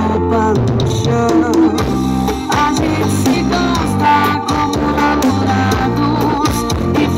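A song with singing, drums and guitar played loud through a trailer-mounted car-audio sound rig of stacked woofers, horn drivers and tweeters.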